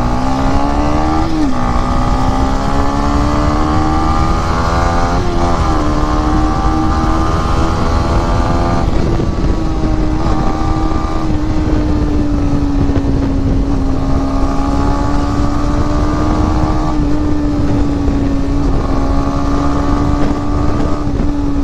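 Yamaha MT-15's single-cylinder engine under hard acceleration. Its note climbs and drops twice in the first six seconds as it shifts up, then holds a steady high-revving drone at road speed, with wind rush over the microphone.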